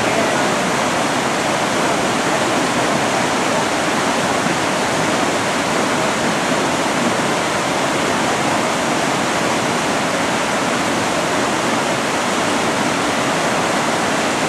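Whitewater river rapids rushing steadily and loudly, an even wash of churning water.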